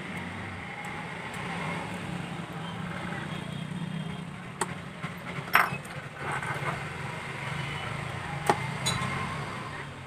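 A few sharp small clicks and taps as the mainboard and its connectors are pried up and lifted out of a Xiaomi Redmi Note 4G phone by hand. The loudest click comes just past the middle, over a steady low background hum.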